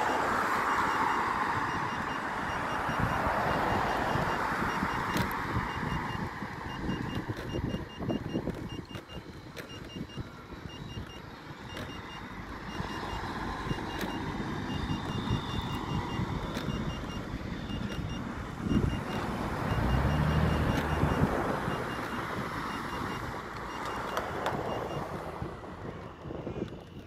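Wind rushing over the microphone of a moving electric unicycle, with runs of short high beeps that come and go throughout, typical of the wheel's speed warning. A vehicle engine passes about twenty seconds in.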